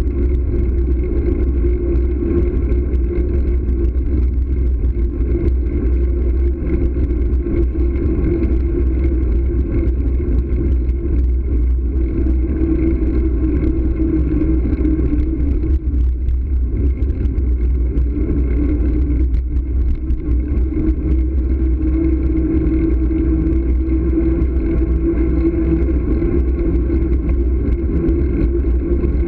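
Riding noise from a moving bike-mounted camera: heavy wind rumble on the microphone under a steady droning hum. It eases briefly about halfway through, then picks up again.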